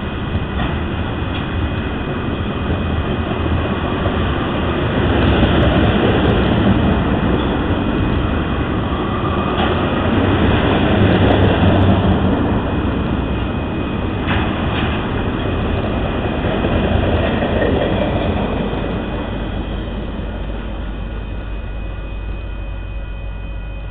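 A freight train's ethanol tank cars rolling past: a steady rumble of steel wheels on rail with occasional sharp clicks over the rail joints. It fades near the end as the train moves away.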